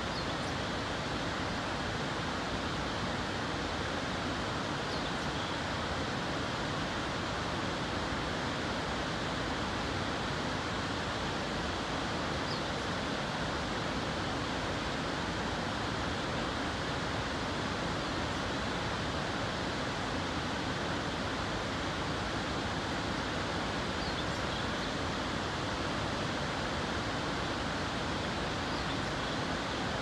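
Distant waterfall: a steady, even rush of falling water.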